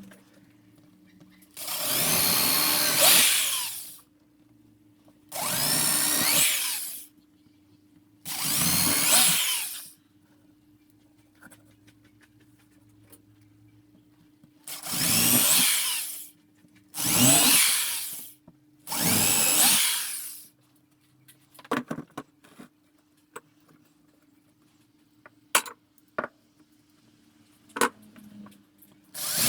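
Handheld electric power tool, such as a drill, run in six short bursts of one to two seconds, each winding down when the trigger is released. A few light clicks and knocks follow, and another burst starts at the very end.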